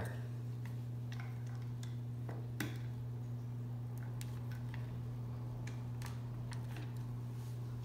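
Faint scattered clicks and ticks of plastic parts being handled as a white quick-connect elbow is pushed back into the reverse-osmosis membrane housing head, one click a little louder about two and a half seconds in, over a steady low hum.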